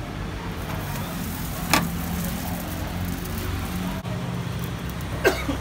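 Steady low rumble of a busy street-food stall around a roti frying on a flat iron griddle, with one sharp tap nearly two seconds in and two short sharp sounds about half a second apart near the end.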